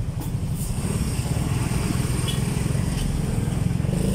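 Motorcycle engine running under way, with a steady low pulsing that picks up a little about a second in as the bike pulls out to pass a truck.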